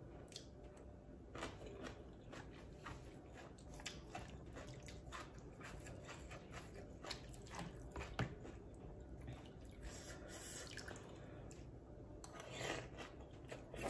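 Quiet eating of duck noodle soup: wet chewing and mouth sounds with scattered light clicks of a metal spoon in a plastic bowl, and a couple of longer slurping sounds in the later part.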